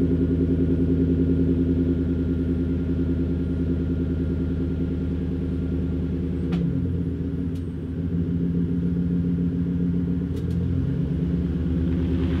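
Chevrolet Silverado pickup engine idling through a large aftermarket exhaust tip, a steady low pulsing rumble. The idle note dips and shifts about six and a half seconds in and again near the end, with a few faint clicks.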